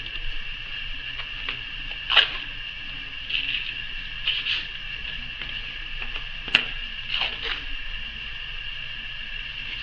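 Masking tape and cardboard being handled: scattered short rustles and taps, with two sharper clicks about two seconds in and again near six and a half seconds. A steady high-pitched whine sits underneath.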